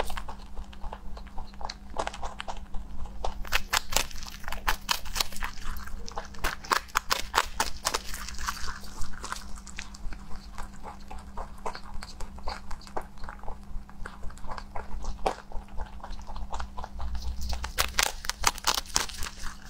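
A rabbit biting and chewing dry pressed green hay cakes: quick runs of crisp crunches, several a second, coming in spells.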